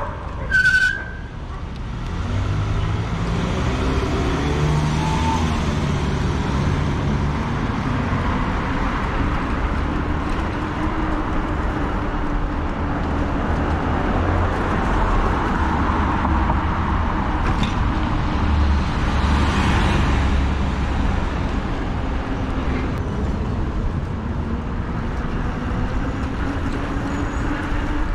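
Road traffic going by: a steady wash of vehicle and tyre noise with low rumble and a passing engine note. A short high beep sounds just under a second in.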